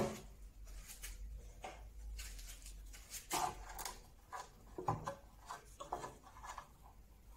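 A sharp wooden knock, then scattered light knocks, taps and rubbing as pieces of old mahogany bed rail are handled and set against each other on a workbench.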